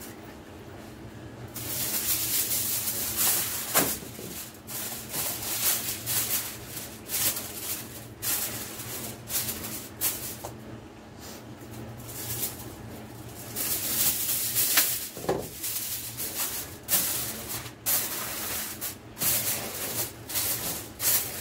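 Aluminium foil crinkling and rustling in irregular bursts as a sheet is pulled off the roll and pressed down around the rim of a baking dish.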